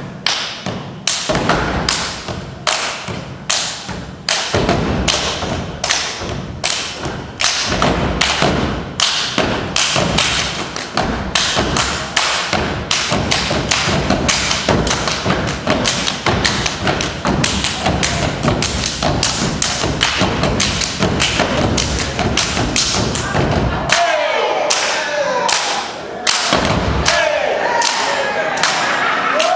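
Step team stomping and clapping in a steady rhythm, about two beats a second at first and growing denser. Near the end the stomps thin out briefly and voices call out over the claps.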